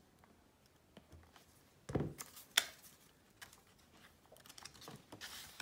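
Quiet handling of paper banknotes and a cash binder's clear plastic envelope: a few light clicks and taps, a soft thump about two seconds in, and faint paper rustling that builds near the end.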